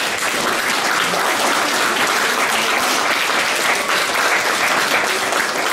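Audience applauding, many hands clapping together at an even, steady level.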